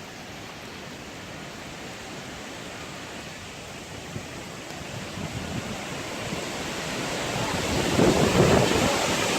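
Wind blowing hard, growing stronger from about halfway through and peaking in a loud gust near the end.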